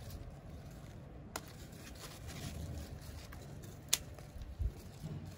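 Two sharp snips, about a second and a half in and again near four seconds, from cutting the stems of garden greens, over faint low background noise.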